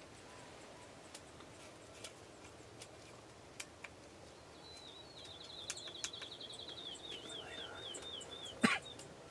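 A songbird singing: a quick run of high repeated notes about halfway in, turning into a string of downward-slurred notes, about four a second. Soft scattered clicks, and one sharp knock near the end that stands out as the loudest sound.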